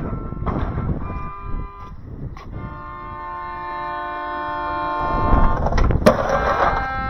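Melodica playing sustained chords. A skateboard rolls in over the last two seconds, with a sharp clack of the board on the concrete about six seconds in.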